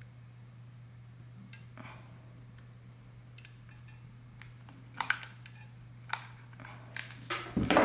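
A few light clicks, spaced about a second apart, then a short louder scrape near the end, from working a hot glue gun loaded with a sealing-wax stick and handling wax seals on a ceramic plate. A faint steady hum lies under it all.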